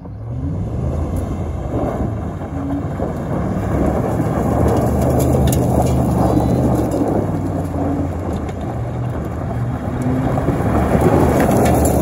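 The Coyote 5.0 V8 of a 2011 Ford F-150 is held at high revs under load as the truck spins donuts on loose gravel, with the spinning tyres spraying gravel and dirt. The engine revs up in the first second, then holds steady while the gravel spray makes a dense rushing hiss.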